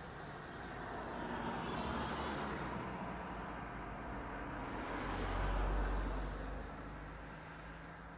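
Cars driving past: tyre and engine noise swells and fades about two seconds in, then a louder pass with a deep engine rumble peaks about five to six seconds in and fades away.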